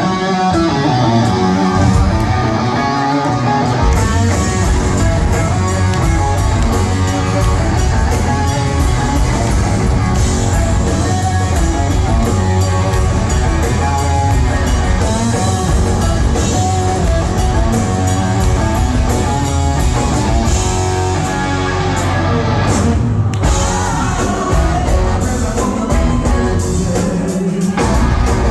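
Live rock band playing loud: electric guitar, drum kit and a singer, recorded from the crowd.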